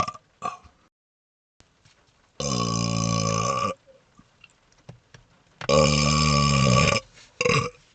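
A man burping: two long, drawn-out burps of over a second each, about three seconds apart, with short burps near the start and near the end.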